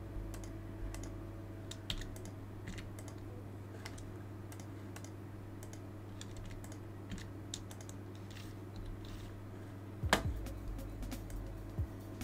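Scattered computer keyboard keystrokes and mouse clicks over a low steady hum, with one louder knock about ten seconds in.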